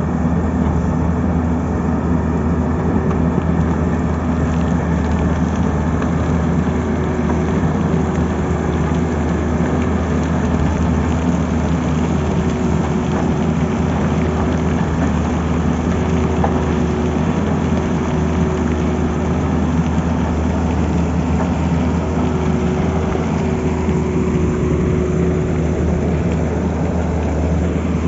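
Tata Hitachi tracked excavator's diesel engine running steadily while it digs, with a thin whine that breaks off and returns several times.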